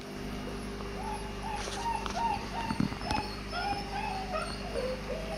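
White Swiss Shepherd puppies whimpering: a run of short, high whines starting about a second in, then a few longer whines that fall in pitch near the end. A few light knocks and a steady low hum sit underneath.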